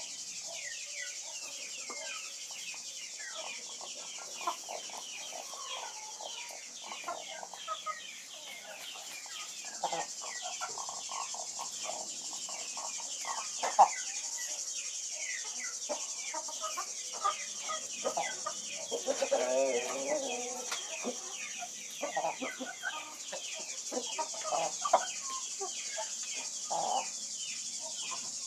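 Spanish White Face chickens clucking on and off, with a longer drawn-out, wavering call about twenty seconds in. A steady high insect drone and many short high chirps run underneath.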